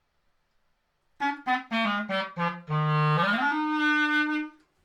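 Clarinet playing a short phrase: several quick detached notes stepping downward, then a low note that slides smoothly up into a long held note.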